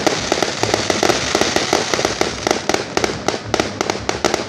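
Fireworks display: a rapid run of sharp bangs and cracks, several a second, over a steady hiss of burning effects.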